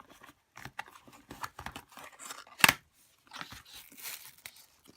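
Packaging around a Shengshou Kilominx puzzle being torn open and crinkled, small rustles and clicks with one sharp rip or snap about two and a half seconds in.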